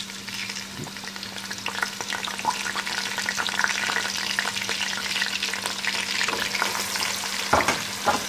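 Sliced onions sizzling and crackling as they start to fry in hot oil with whole spices in an aluminium pot, the sizzle building over the first couple of seconds and then holding steady. Near the end, two knocks as a wooden spoon goes into the pot to stir.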